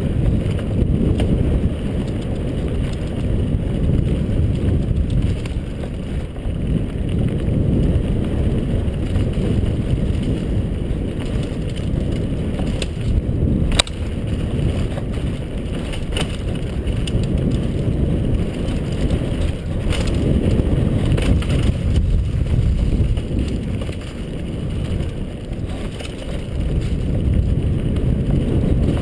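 Downhill mountain bike rolling fast over a dirt trail: a steady rumble of knobby tyres and wind rushing over the microphone, with a few sharp knocks as the bike hits bumps, the sharpest about fourteen seconds in.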